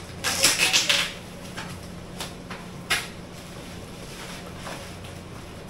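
Plastic parcel wrapping rustling as a cardboard box is pulled out of its bag and handled, loudest in the first second, with a couple of sharp taps later on.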